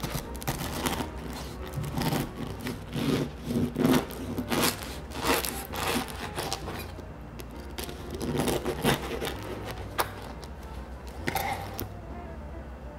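Knife sawing through the crust of a loaf of bread: a string of irregular crisp scraping and crackling strokes, stopping about a second before the end.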